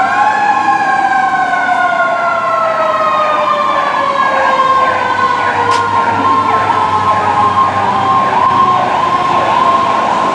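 Fire truck sirens: one wail slowly falls in pitch throughout, against a steady high tone, and from about four seconds in a second siren joins with quick repeated yelping sweeps.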